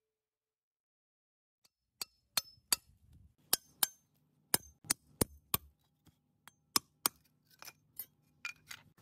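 Hollow red clay bricks being knocked and chipped by hand, hard fired clay clinking. The sharp, irregular clinks start about two seconds in and come about fifteen times over the next seven seconds.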